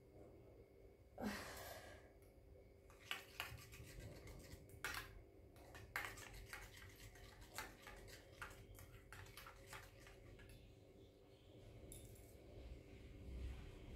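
Faint, irregular clinks and taps of a metal spoon against a small steel bowl while a baby is spoon-fed, with a short louder noise about a second in.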